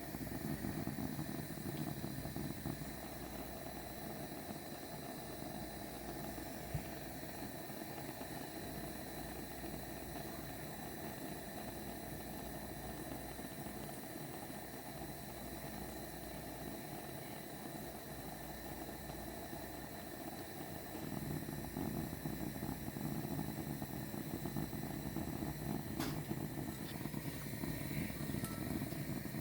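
Gas torch flame burning steadily with a low fluttering rumble as it melts wax out of a power tester; it grows a little louder over the last several seconds.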